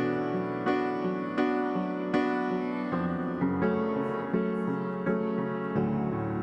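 Instrumental piano music with no singing, chords struck evenly about every three-quarters of a second.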